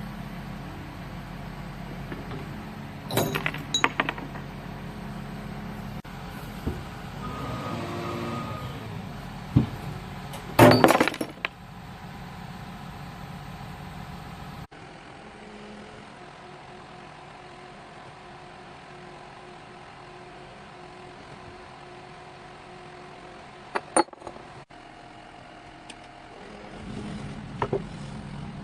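Hydraulic excavator engine running steadily while glass bottles clink sharply against one another and against the grab as they are picked up and stacked. The loudest rattle of clinks comes a little before the middle, with single clinks later on. About halfway through the engine hum suddenly becomes much quieter.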